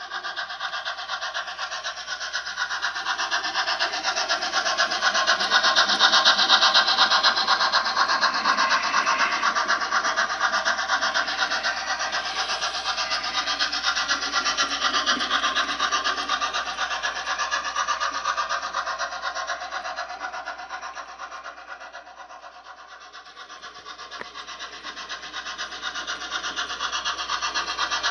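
HO-scale model steam locomotive and gondola train running along the layout track: a rapid, rasping rattle of its motor, gears and wheels. It grows loudest about six seconds in, fades about twenty-two seconds in, then grows louder again.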